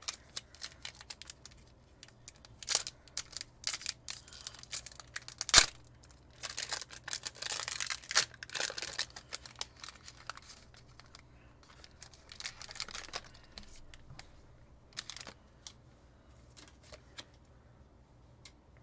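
Shining Fates Pokémon booster pack being opened by hand: the foil wrapper crinkles and tears in a run of sharp crackles, thickest about seven to nine seconds in, with one louder snap shortly before. The crackling thins to a few light clicks near the end as the cards are handled.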